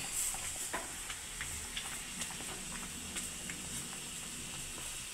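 Batter-coated steel bowl deep-frying in hot oil in a kadhai: a steady sizzle with scattered pops and crackles as the batter fries.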